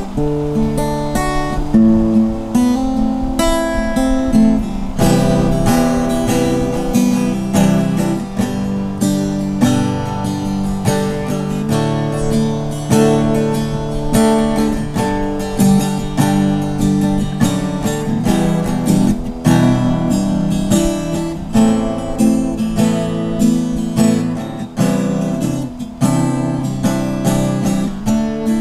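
Applause by Ovation acoustic-electric guitar, strung with electric-guitar strings, strummed in a steady run of chords.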